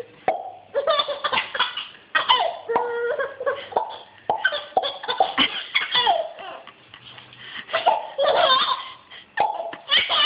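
Baby laughing hard in repeated bursts of belly laughs, with short pauses between bouts.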